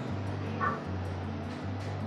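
Quiet background music with a low steady hum, and a short faint sound about half a second in.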